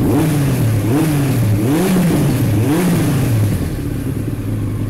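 1998 Yamaha R1's carburetted inline-four engine revved with several quick throttle blips, the revs rising and dropping back each time, then settling to a steady idle about three and a half seconds in. The revs come back down to idle, no longer hanging on as badly after the carburettor pilot screws were reset, though not perfectly.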